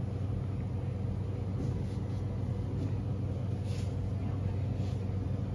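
A steady low mechanical hum, with a couple of faint short rustles near the end.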